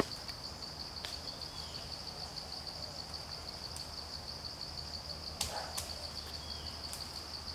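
Insects chirring steadily in a high, rapidly pulsing trill, with a few sharp snaps from the tree branches being climbed, the loudest a little past the middle.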